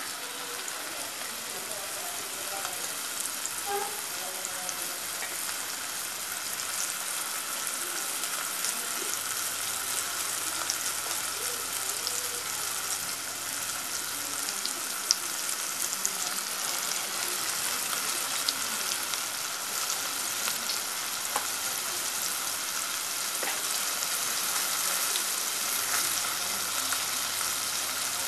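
Bombay duck (bombil) fish pieces frying in hot oil in a pan: a steady sizzle with scattered crackles and pops, growing slowly louder.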